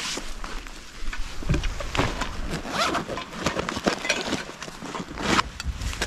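A backpack is set down on a rock and rummaged through: rustling fabric stuff sacks and irregular knocks and clicks as gear is pulled out.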